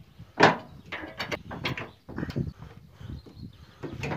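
Clanks and knocks of a steel tipping-trailer tailgate being handled at its chain and latch, a sharp knock about half a second in and a few more within the next second or so.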